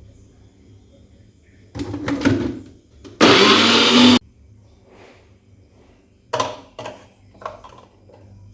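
A small electric kitchen-appliance motor run in one short burst of about a second, starting and stopping abruptly, its pitch rising as it spins up. Before it comes a clatter, and after it a few sharp knocks.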